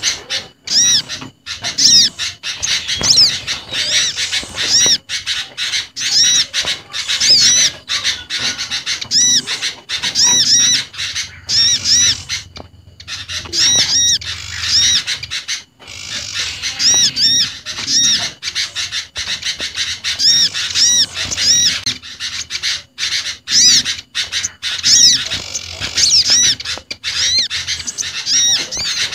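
Bird-lure recording mixing the calls of small garden birds (olive-backed sunbird, common iora, prinia and sooty-headed bulbul), with rapid, densely repeated high chirps and whistled notes that go on with only brief breaks.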